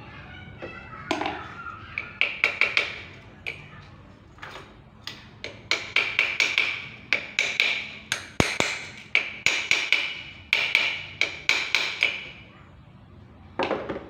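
A rapid, irregular series of sharp metallic taps, each ringing briefly, as a steel rod is knocked against the pulley of a Polytron washing machine's spin-dryer motor to seat it on the shaft. The tapping stops about a second before the end, then one last knock sounds.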